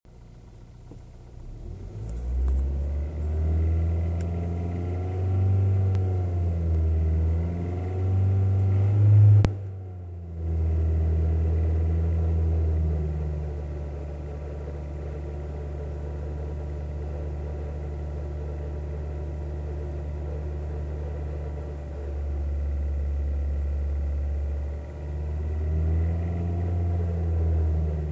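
Kia Ceed JD engine running, revved up and down twice with a steady idle between, recorded to show an unexplained extraneous engine noise.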